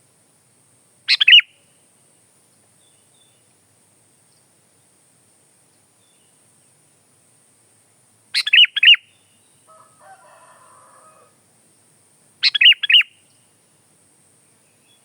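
Sooty-headed bulbul (kutilang) calling: three short bursts of a few quick chirps each, about a second in, around eight seconds in and near the end. A faint scratchy rustle sits between the second and third bursts.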